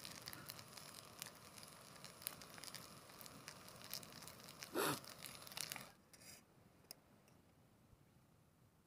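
Faint crackling and sizzling of king prawns and rice cooking in a pot on a camping stove, with many small pops and one louder brushing sound about five seconds in. It stops about six seconds in, leaving near silence.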